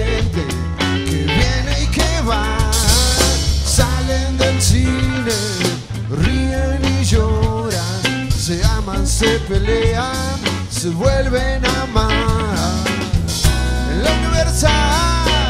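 Live acoustic blues-rock band playing: strummed guitars over a drum kit, with a lead melody line that bends in pitch. The sound dips briefly about six seconds in.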